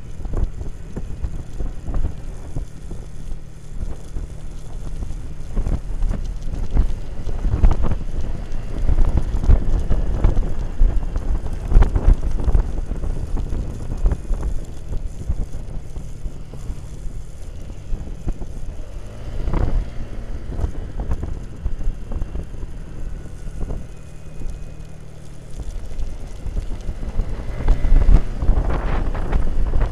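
Motorcycle engine running at road speed, its pitch stepping up and down with the throttle, under heavy wind buffeting on the bike-mounted microphone.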